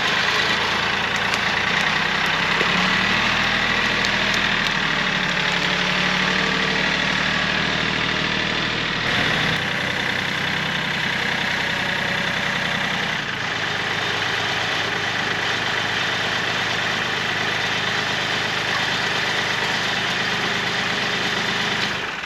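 Tractor engine running steadily, driving a Woodmaxx WM8H PTO wood chipper, with the engine's note shifting slightly twice partway through.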